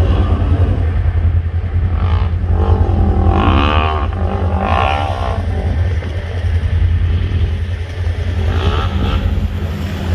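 Engines of ATVs and a side-by-side UTV riding on sand dunes, their pitch rising and falling as the riders rev, loudest about two to five seconds in and again near the end, over a steady low engine rumble.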